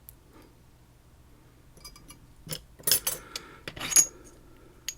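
Small metal lock parts clinking and rattling as a padlock and its cylinder core are handled: a few faint clicks about two seconds in, then a quick run of sharp clinks and jingles, the loudest a short ringing clink about four seconds in.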